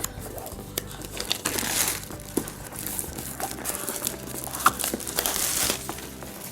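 Plastic shrink wrap crinkling and crackling as it is pulled off a board game box, with scattered small clicks from handling the box.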